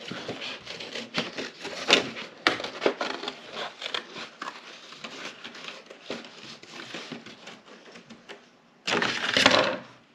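Scissors snipping through folded cardstock, with the paper rustling and crackling between cuts, and a brief louder rustle of paper near the end.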